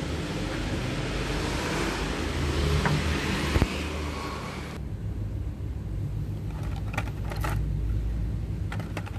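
Rumble and rubbing handling noise on a handheld phone's microphone while walking, with one sharp click about three and a half seconds in. The noise cuts off abruptly about five seconds in, leaving a quieter low rumble with a few light clicks as plastic-packaged toy cars are handled on a wire peg rack.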